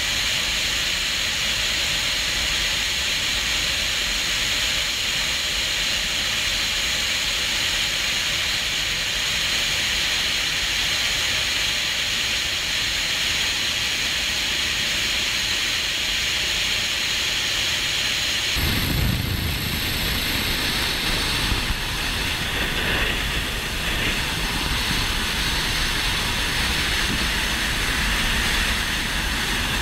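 Helicopter in flight heard from on board at an open door: a steady, loud rush of engine, rotor and wind noise. About two-thirds of the way through, the sound changes abruptly to a heavier, deeper rush.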